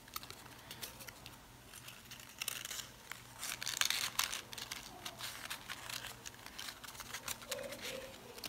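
Sheets of colored paper rustling and crinkling as hands press and shift glued petal layers of a paper flower, in irregular small crackles with a denser run of crackling about a third of the way in.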